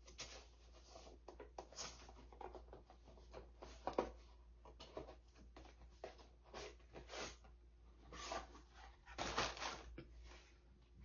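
Makeup packaging being handled and opened by hand: scattered light rustles and clicks, with a sharper click about four seconds in and a longer rustle around nine to ten seconds in.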